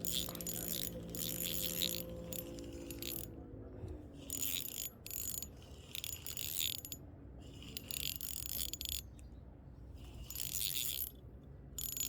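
Fishing reel being cranked in short bursts, its gears whirring and clicking as a hooked fish is reeled in. A faint low hum fades out about three seconds in.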